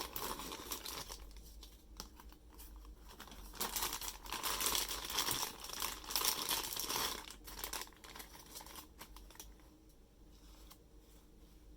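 Figure packaging being handled and crinkled during an unboxing: two stretches of crinkling, the longer one in the middle, followed by a few sharp clicks and then softer handling near the end.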